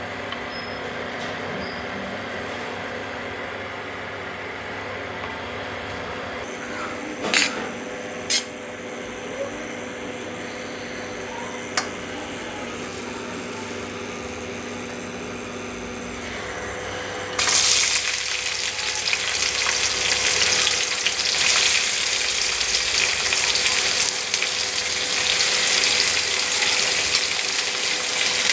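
A steady hum with a few sharp clinks, then, about two-thirds of the way in, a sudden loud sizzle as food hits hot oil in a pan, frying on steadily.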